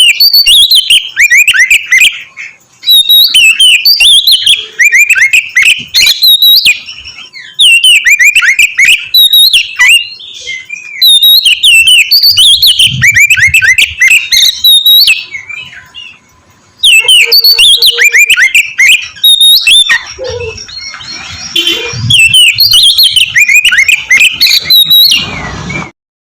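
Oriental magpie-robin (kacer) singing loudly: fast runs of sharp, sweeping whistled notes in bursts of a few seconds with short pauses between them. This is the aggressive song of a bird in full voice, used to provoke rival males.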